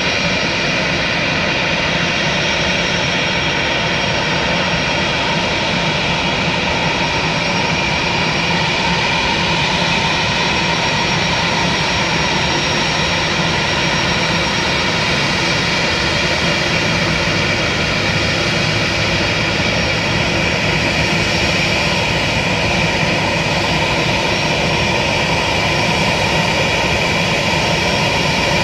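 Airliner engines running steadily as the plane taxis at low speed, a constant whine over a broad rushing noise.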